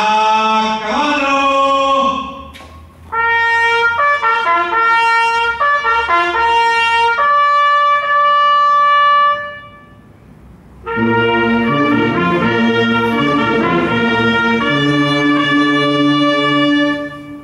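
A military trumpet sounds a cavalry call for a symbolic charge: short rising phrases, then a long high held note that breaks off about ten seconds in. About a second later the regiment's brass band comes in together with full chords over low brass notes.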